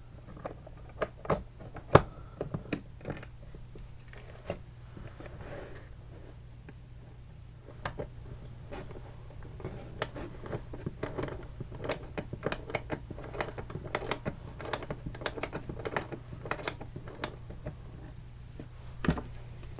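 Small metal and plastic parts of an airsoft version 2 gearbox clicking and tapping against the open shell as it is reassembled. The clicks come irregularly, a few sharp ones at first and then a busy run through the second half, over a low steady hum.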